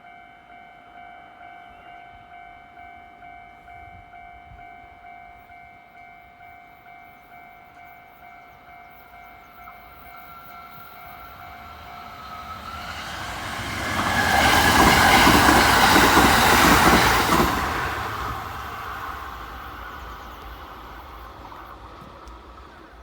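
Electronic warning bell of a Kintetsu railway level crossing, ringing in a steady repeating pattern. About twelve seconds in, a train swells up and passes over the crossing loudly, then fades while the bell is still sounding.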